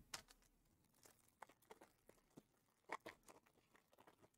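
Faint crinkling and tearing of a trading-card pack wrapper as it is handled and torn open: a scatter of short crackles, a little louder about three seconds in.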